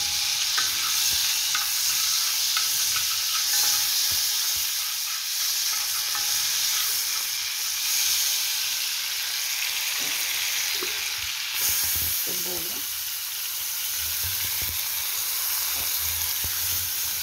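Hot fat sizzling steadily in an aluminium pot as seasoning and chopped onion fry in it, with a metal spoon stirring and knocking against the pot now and then.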